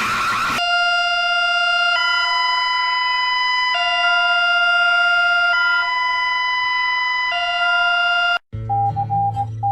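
Electronic hi-lo alert siren: a buzzy tone alternating between a lower and a higher pitch about every two seconds, in the style of an emergency alarm. It opens with the end of a noisy warbling alarm, and near the end cuts to a broken beeping tone over a low drone.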